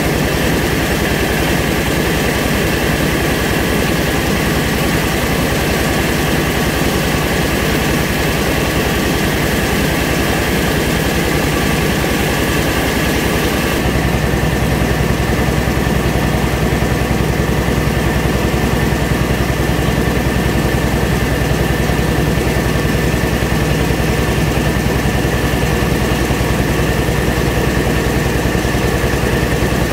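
Engine-driven rice milling machine running steadily. About halfway through, its note changes abruptly in the low end and the sound gets a little louder.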